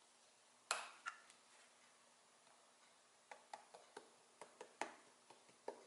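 Cinnamon shaker container handled and shaken over a bowl of apple slices: a sharp click just under a second in, then a scattered run of light taps and clicks from about three seconds on.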